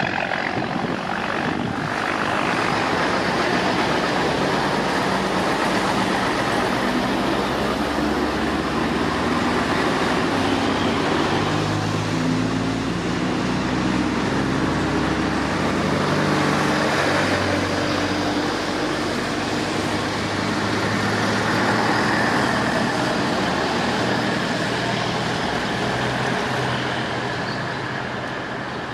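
Vintage trucks, including a bonneted Scania-Vabis, driving past one after another; their engines rise and fall in pitch as each one approaches and passes, easing off slightly near the end.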